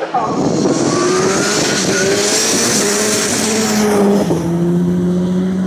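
Turbocharged Ford Escort RS Cosworth rally car accelerating hard uphill away from the listener, its engine pitch rising. It shifts up once about four seconds in and then pulls on.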